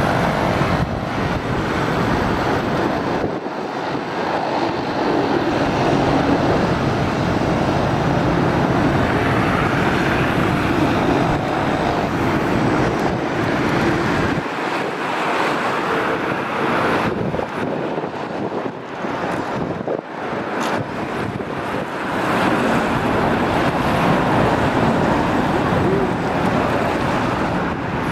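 Mi-8-family military helicopters flying overhead: a steady drone of turbines and rotors, mixed with wind buffeting the microphone. The level dips briefly a few times.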